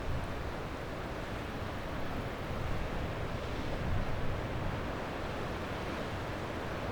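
Ocean waves washing onto a beach: a steady rush of surf with low rumbling swells, slightly louder a few seconds in, and some wind on the microphone.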